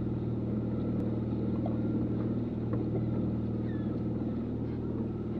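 Boat's outboard motor running steadily at trolling speed, a constant low engine hum.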